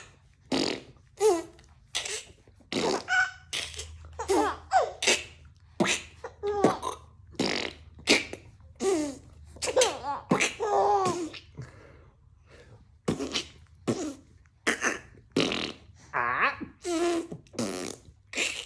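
A person making short, fart-like mouth noises in quick succession, about two a second, and a baby laughing in bursts between and over them.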